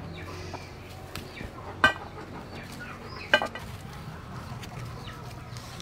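A chicken clucking twice, two short sharp calls about a second and a half apart, over a faint low hum.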